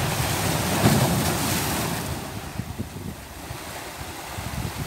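Sea waves breaking against shoreline rocks: a wash of surf that swells about a second in and then eases off, with wind buffeting the microphone.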